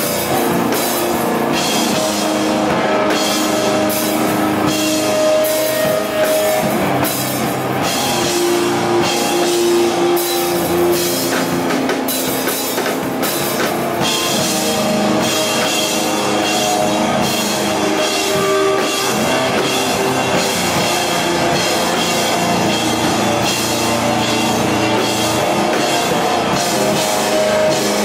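Heavy rock band playing live: distorted electric guitars and a drum kit, with steady loud playing and repeated cymbal crashes.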